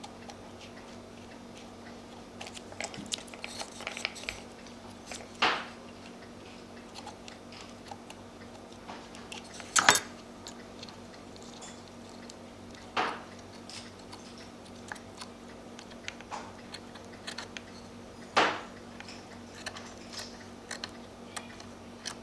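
Cutting new paper for a cuckoo clock bellows: scattered small clicks of handling and trimming, with four louder crisp cuts about 5, 10, 13 and 18 seconds in, over a faint steady hum.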